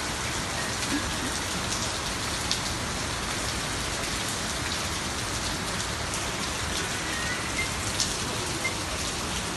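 Steady rain falling, with a few sharper drip hits now and then.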